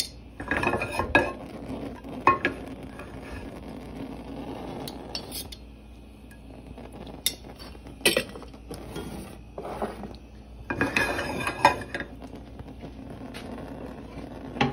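Metal spoon clinking and scraping against a frying pan and a ghee jar as desi ghee is scooped out and dropped into the pan, in scattered clusters of clinks and knocks.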